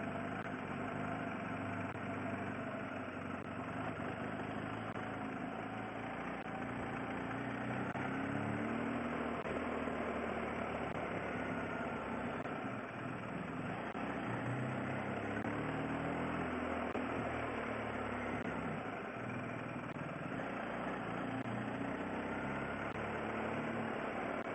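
Motorcycle engine running while riding along, its pitch rising and falling a little with speed, over a steady rush of road noise.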